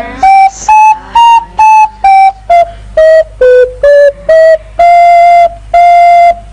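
A simple tune played on a small flute: about ten short separate notes stepping up and down, then two longer held notes on the same pitch.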